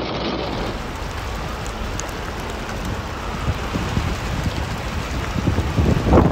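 Heavy rain falling steadily, heard from inside a car, with louder irregular low rumbling near the end.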